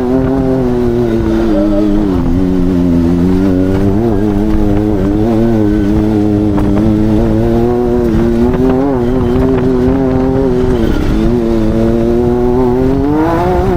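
Can-Am Maverick R X RS side-by-side's turbocharged 999 cc three-cylinder engine running hard under way, its pitch rising and falling with the throttle, dipping briefly and then climbing near the end.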